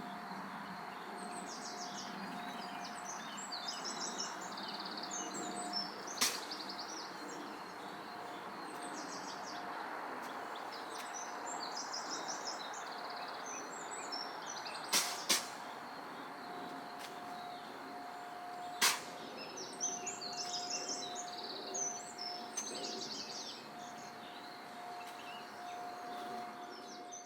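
A deer sneezing: four short, sharp sneezes, one about six seconds in, two in quick succession around fifteen seconds, and one near nineteen seconds. Songbirds chirp throughout over a steady faint tone.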